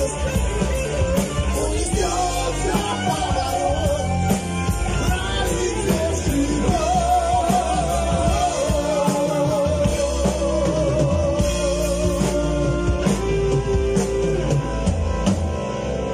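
Live rock band playing: a sung lead vocal over electric guitar, bass guitar, keyboard and drum kit, with a long held note near the end.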